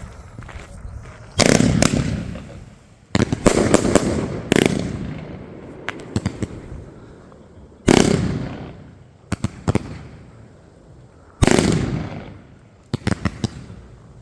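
Consumer F2 fireworks firing: about five heavy bangs a couple of seconds apart, each fading away in a long echo, with shorter sharp cracks between them.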